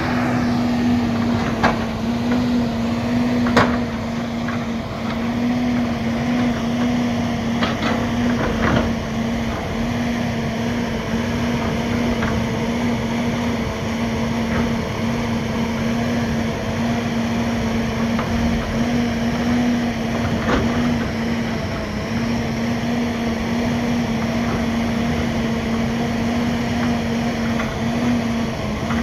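Diesel engine of a tracked John Deere forestry machine running steadily at a constant speed, with a few sharp metallic knocks in the first nine seconds and once more a little past the middle.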